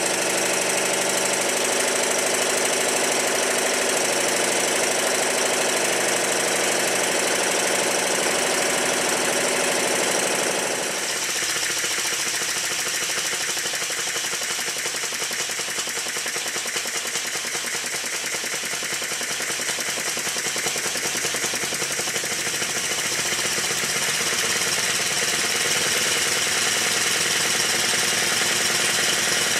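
Stuart triple expansion model steam engine running during its running-in, a fast, steady mechanical clatter from its many moving parts, made louder by the workbench it sits on acting as a soundboard. About eleven seconds in the sound changes, losing its fuller lower part and becoming a lighter rattle.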